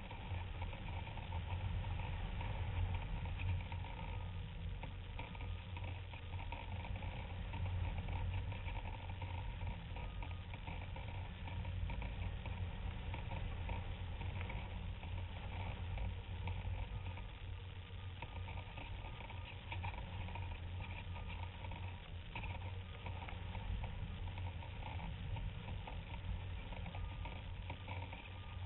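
Airflow rushing over a camera mounted on a flying RC glider: a steady low wind rumble with a hiss above it.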